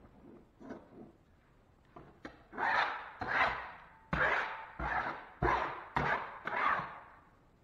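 Metal putty knife scraped in a run of short, quick strokes across fiberglass mesh tape and textured drywall, pressing the tape flat over the patch. Fainter scratching from the tape being laid comes first; the loud strokes start about two and a half seconds in, seven or eight of them.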